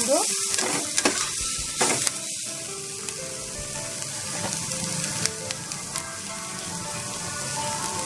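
Chopped onion, grated carrot and capsicum sizzling in hot oil in a frying pan, with a steady hiss. A metal spatula stirs and clicks against the pan several times in the first two seconds and once more midway.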